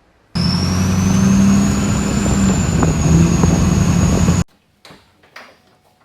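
Duramax turbodiesel pickup engine under hard throttle, with a high turbo whistle rising over the engine note. The sound cuts in and cuts off abruptly and lasts about four seconds.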